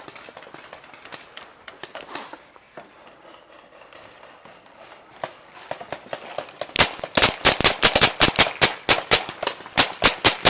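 Paintball marker fired rapidly at close range, several shots a second, starting about seven seconds in. Before that there are faint scattered pops of paintball fire further off.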